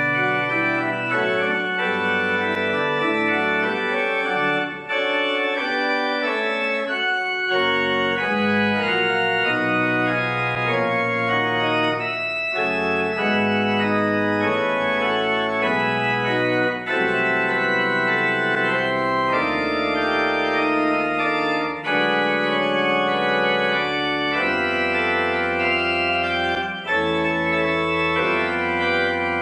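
Church organ playing the postlude after the dismissal: full sustained chords that change every second or two, with a few brief breaks between phrases.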